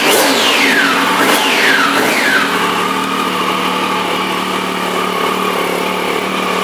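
2008 Triumph Street Triple's 675cc three-cylinder engine, through its stock under-seat exhaust, revved in three quick throttle blips, each falling straight back. It then settles to a steady idle about two and a half seconds in.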